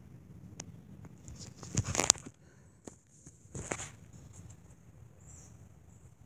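Two short bursts of rustling handling noise, about two seconds in and again near four seconds, the first louder, with a few faint clicks, as the toy snake and phone are handled and moved.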